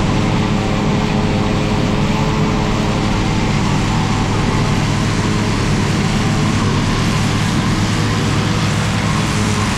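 Fendt tractor working with front and side mowers: a steady diesel engine drone under load, with a broad hiss from the mowers cutting grass.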